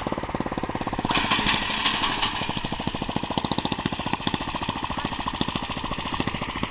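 Small engine running with a rapid, even chugging, with a burst of hissing about a second in that lasts a second or so.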